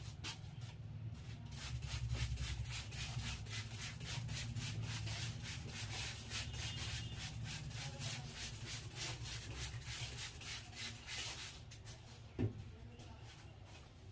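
A barber's hands rubbing briskly over a customer's hair and scalp during a head massage, in quick even strokes of about five a second that stop near the end, followed by a single soft thump.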